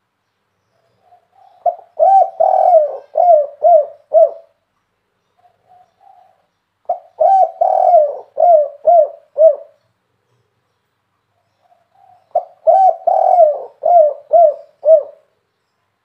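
Caged spotted dove cooing in the song pattern Indonesian dove keepers call 'kuk 3'. There are three phrases about five seconds apart; each is a soft lead-in note followed by a run of five or six coos, the last ones short and falling.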